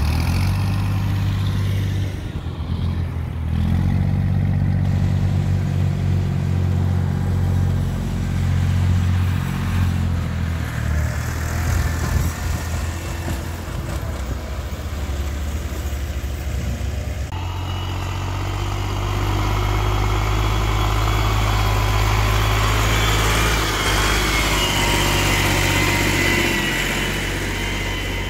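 Farm tractor's diesel engine running steadily while its trolley tips a load of soil. About two-thirds of the way through the sound changes abruptly: the engine goes on, and a hiss with a thin high whine joins it.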